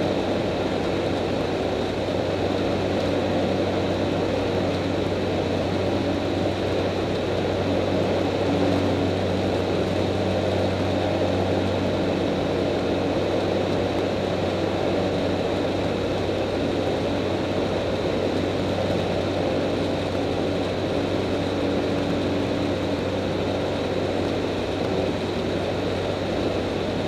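X-Air Hanuman ultralight's engine and propeller running steadily in flight, heard from inside the cockpit as a constant drone with rushing air.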